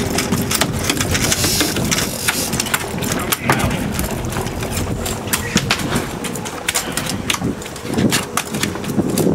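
A freshly landed brown trout flopping on a boat's fiberglass deck, its body slapping the deck again and again at an irregular pace. The boat's engine runs steadily underneath.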